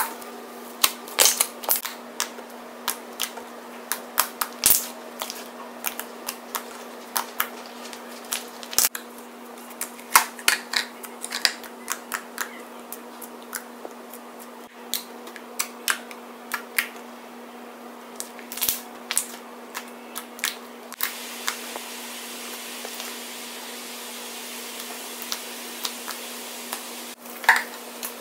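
Slime being squeezed, pressed and poked by hand, giving irregular sharp clicks and pops, thick in the first half and sparser later, over a faint steady low hum.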